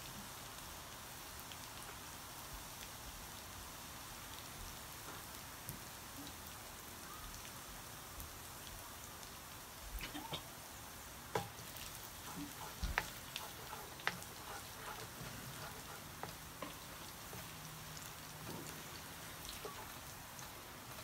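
Chopped garlic frying in hot oil in a wok: a quiet, steady sizzle with scattered pops and crackles, busiest about halfway through.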